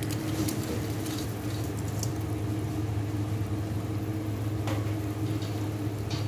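Macaroni tipped from a steel colander into a pot of soup and stirred with a wooden spoon: a few soft taps and splashes over a steady low hum.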